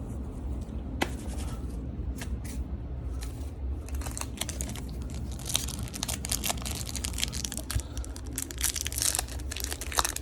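Foil trading-card pack wrapper being torn open and crinkled by hand: a few scattered crackles, then a dense crackling from about four seconds in, over a steady low hum.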